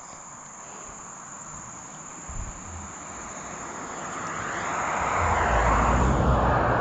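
A passing engine, its noise building slowly over several seconds to a peak near the end, over a steady high-pitched trill of insects.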